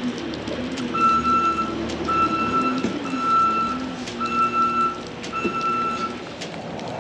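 Reverse alarm of a farm machine beeping five times, about once a second, while it backs up with its engine running underneath.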